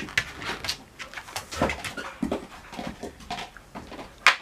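Dogs panting and moving about, with scattered short clicks and scuffs and one sharp knock about four seconds in.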